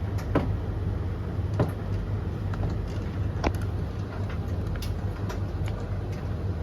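Three tumble dryers (Blomberg LTK310030W, Russell Hobbs RH3VTD800 and Hoover HLEC8TRGR-80) running together mid-cycle: a steady motor hum with the rush of tumbling drums. Sharp clicks come now and then, the clearest about a second and a half in and halfway through.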